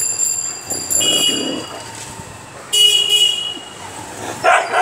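Two short toots of a vehicle horn, one about a second in and a louder one near three seconds, followed by a brief noisy sound near the end.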